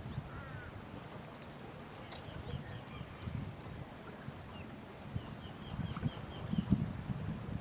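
Insect trilling: a high, thin, steady buzz that starts about a second in and pulses on and off, over an uneven low rumble.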